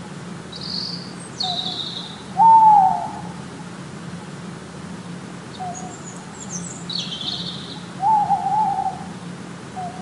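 An owl hooting: two longer hoots, about two and a half seconds in and again about eight seconds in, with a few shorter soft notes between them. High short chirps come in between the hoots, over a steady low hum.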